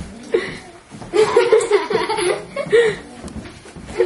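Girls laughing: a short sound just after the start, then a longer run of laughter lasting about two seconds.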